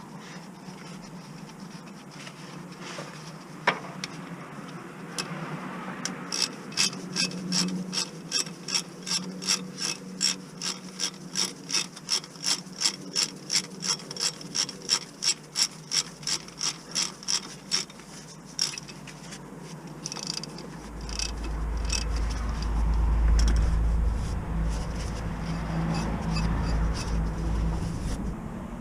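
Hand socket ratchet being worked, clicking steadily about three times a second for a stretch. Near the end, a low rumble.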